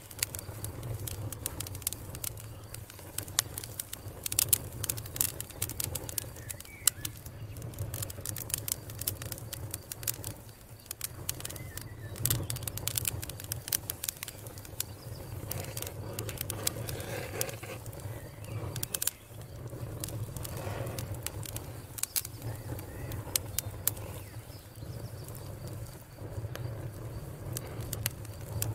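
Wood campfire crackling and popping, sharp snaps coming irregularly and in clusters over a low steady rumble.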